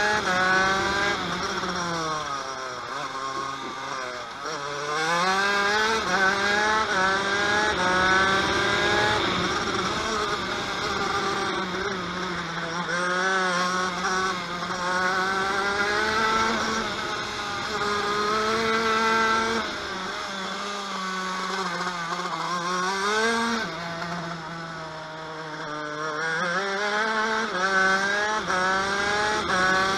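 TM KV92 125cc two-stroke shifter kart engine at racing speed. It revs up through the gears, its pitch climbing in a series of rising sweeps with a brief dip at each upshift, and it falls away a few times under braking before climbing again.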